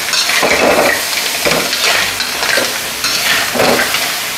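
A metal spatula scraping and tossing steamed blue crab pieces in their shells, with onion and spring onion, around a wok. The hot oil sizzles underneath, with a scrape and clatter of shells at each stroke, several strokes in a row.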